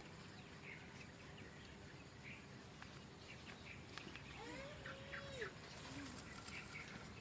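Faint outdoor ambience with scattered short bird chirps and calls, including one sliding call about two-thirds of the way through, over a steady high-pitched hiss.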